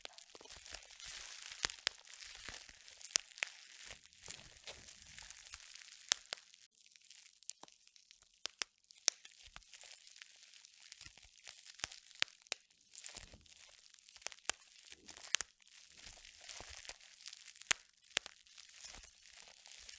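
Irregular crunching and crinkling, with many sharp clicks and crackles scattered throughout and a brief lull about halfway through.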